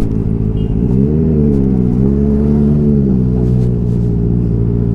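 Motorcycle engine running, muffled, revving up about a second in and settling back near two seconds, then holding a steady note.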